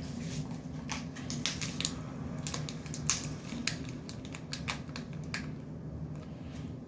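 Plastic packaging of gel balls being handled and crinkled, a string of irregular sharp crackles and clicks, over a steady low hum.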